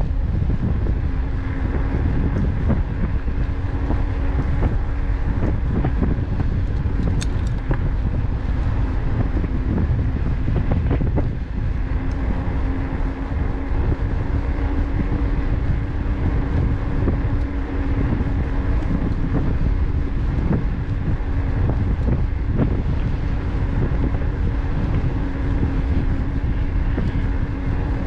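Wind buffeting the microphone on a moving e-bike, over a constant low rumble from the ride, with scattered knocks and a steady hum that grows stronger about halfway through.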